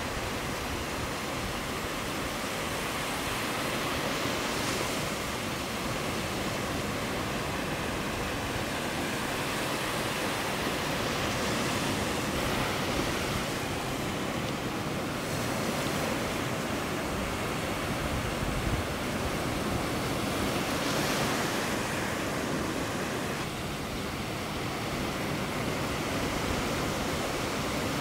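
Sea surf washing onto a sandy beach: a steady rushing hiss that swells and fades every several seconds as waves break and run back.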